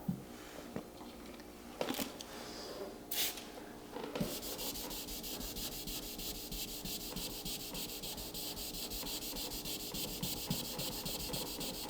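Wet sanding of automotive clear coat by hand: a couple of separate swipes, then from about four seconds in a steady run of fast, short scrubbing strokes, knocking down deep scratches in the door's paint before compounding.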